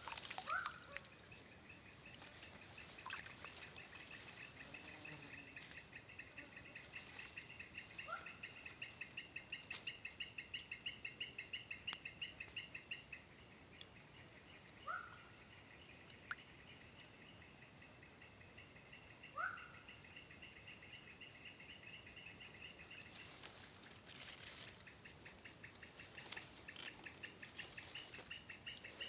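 An insect trilling in a fast, even, high-pitched pulse. The trill pauses twice and starts again. A few short, rising chirps from another small animal come in between.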